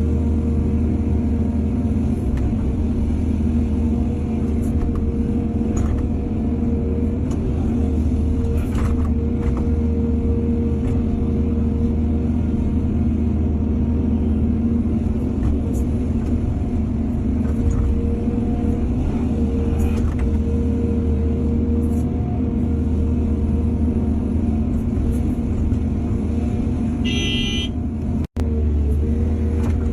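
Excavator's diesel engine running steadily under load, with faint knocks now and then. A brief high-pitched stuttering sound near the end, then the sound cuts out for an instant.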